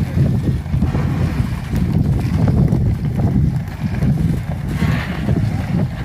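Wind buffeting the microphone, a loud, uneven low rumble that swells and falls.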